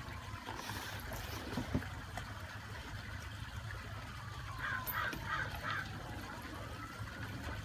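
A bird calling four times in quick succession a little past the middle, over a faint siren slowly falling and rising and a low steady hum.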